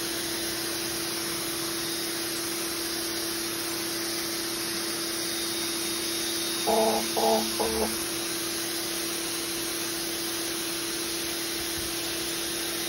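Ryobi 1600 PSI electric pressure washer running, a steady motor hum under the hiss of its 40-degree fan spray hitting concrete. About halfway through, three short pitched calls sound over it.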